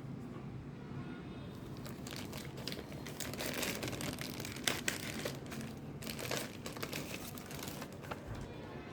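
Packaging crinkling and rustling as it is handled and unwrapped, with scattered small clicks and knocks.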